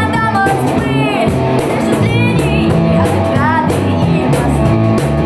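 A band playing a song, a woman singing over double bass and other instruments, with a bass line that changes note every fraction of a second.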